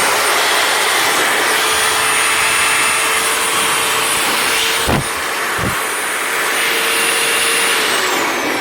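Bosch GRW 11E mixing drill's motor running steadily at full speed with a high whine, just rebuilt with a new armature and pinion gear. Two knocks come about five seconds in, and near the end the drill is switched off and winds down, its pitch falling.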